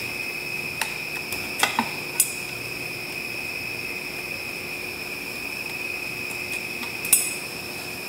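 Small metallic clicks and clinks from hands handling the cover, screws and hardware of a steel electrical box, a few in the first two seconds and a sharper one near the end, over a steady high-pitched whine.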